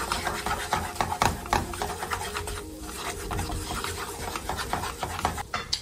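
Wooden spatula scraping and stirring flour into bubbling oil and chopped garlic in a nonstick frying pan, in quick irregular strokes over a sizzle: the flour being cooked in the oil to thicken the sauce.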